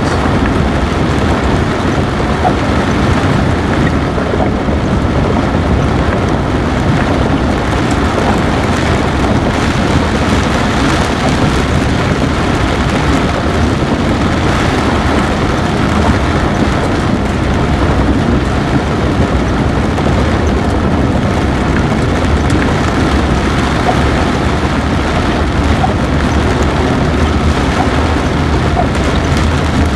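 Vehicle driving through floodwater running across a gravel road: a steady wash of tyre spray and water noise with the engine running underneath.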